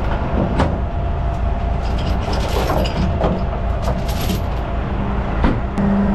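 Heavy steel recovery chains clinking and rattling as they are handled in a tow truck's side compartment, over the steady rumble of an idling truck engine. Near the end the clinking stops and a steady low hum comes in, louder.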